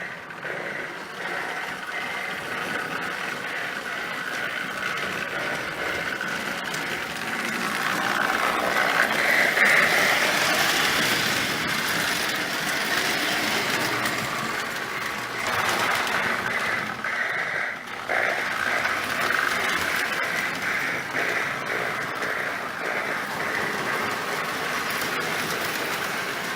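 Marx No. 1666 toy steam locomotive and tender running on three-rail O-gauge track: a steady mechanical whir and rattle of the motor and wheels on the rails. It grows loudest about ten seconds in, then eases off.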